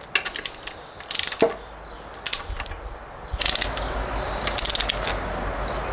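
Ratchet wrench clicking in several short bursts of rapid clicks as the M8 nuts on a gearbox differential cover are run down and tightened to 27 Nm.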